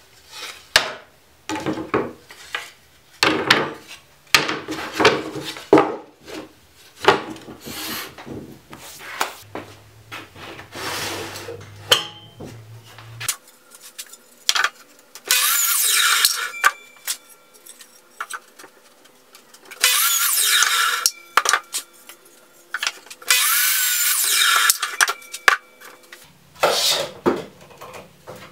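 Wooden strips knocking and clattering as they are handled, then a Hitachi miter saw cutting wood three times, each cut lasting about a second and a half. A few more knocks follow near the end.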